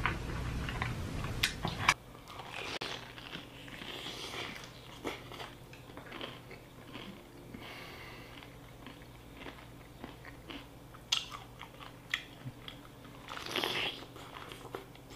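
Close-miked eating sounds: wet chewing and smacking with crisp crunches of fried chicken coating, in scattered short bites. About two seconds in, a low background hum cuts off abruptly.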